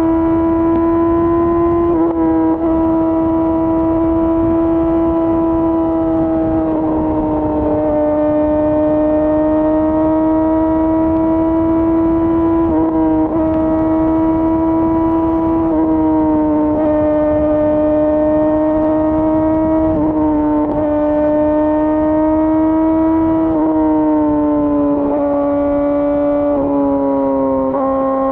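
2018 Yamaha YZF-R6's inline-four through an Akrapovic full exhaust, held at high revs at a nearly steady pitch while riding, dipping slightly a few times. Wind rushes over the microphone underneath.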